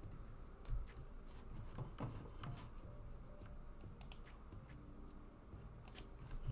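Faint, irregular clicks and taps over a low steady hum, the loudest tap about a second in.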